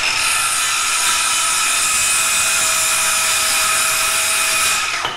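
Cordless circular saw running at full speed, cutting through a wooden shovel handle with a steady high whine. It winds down and stops near the end.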